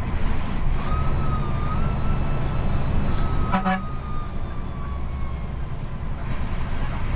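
Daewoo BF106 bus's DE08TIS diesel engine running at cruise with road noise, heard from inside the cab, with a thin high whine that wavers from about a second in. A short horn toot sounds about three and a half seconds in.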